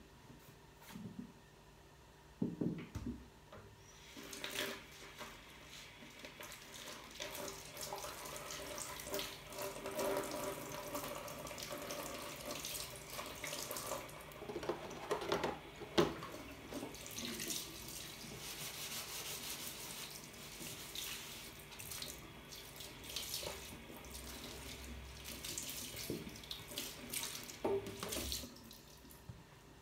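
Water running from a tap into a sink, turned on about four seconds in and off near the end.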